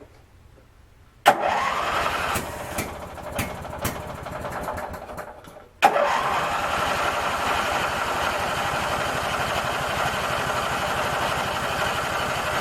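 Craftsman 19.5 hp twin riding mower engine being cranked on its starter twice. The first try starts about a second in, sputters and dies away. The second starts near six seconds in and holds steady without settling into a run: the engine is struggling to start, which the owner first takes for flooding and which turns out to be a tank nearly out of gas.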